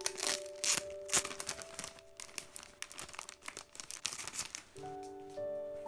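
Clear plastic sleeve crinkling as a packet is handled and unwrapped, busiest in the first four seconds, over soft background music with held notes.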